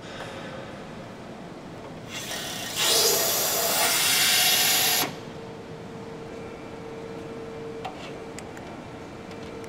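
Loud hiss of fluid rushing through a hydraulic maintenance valve as it is opened. It starts about two seconds in, grows louder and cuts off sharply about halfway through. A faint steady hum follows, with a few light clicks near the end.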